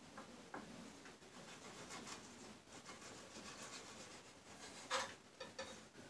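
Knife cutting herring on a wooden cutting board: faint, irregular taps and scrapes of the blade against the board, with one louder knock about five seconds in.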